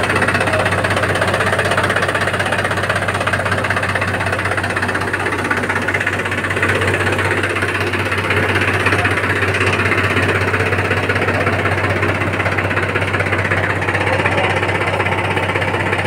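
Mahindra 265 DI tractor's three-cylinder diesel engine idling steadily.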